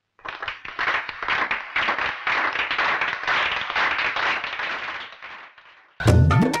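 A crowd applauding, a dense patter of clapping that dies away over the last second or so. Music cuts in suddenly at the very end.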